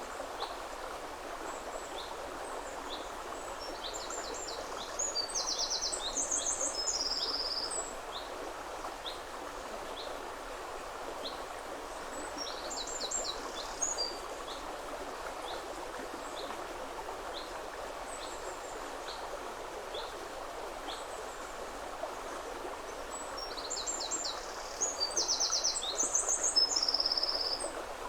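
Woodland river flowing steadily, with a songbird singing three short phrases of quick high notes and another bird giving faint calls over and over.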